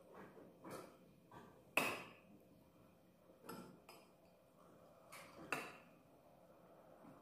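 A few sharp clinks and knocks of tableware, spoons against ceramic mugs and dishes on a table. The loudest, ringing clink comes about two seconds in and another about five and a half seconds in, with softer knocks between.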